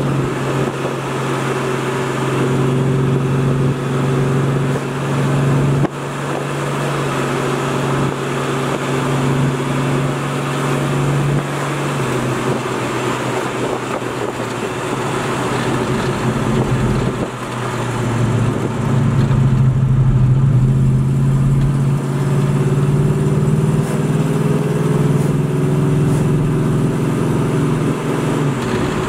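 Plymouth Barracuda's engine and exhaust heard from inside the cabin while driving, a steady drone over road noise. Its pitch drops about twelve seconds in, then rises as the revs climb from about the middle onward.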